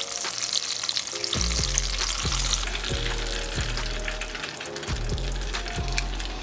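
Breaded green tomato slices frying in a skillet of hot vegetable oil: a steady sizzle full of fine crackles. Background music with a low bass line plays underneath.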